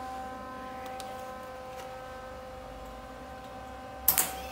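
Steady hum with a few faint ticks, then about four seconds in a short, loud crackle as a MIG welder's arc strikes on a steel exhaust pipe.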